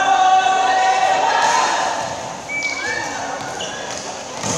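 Volleyball players shouting and calling out, with one long drawn-out cheer in the first second and a half, echoing in a large gymnasium.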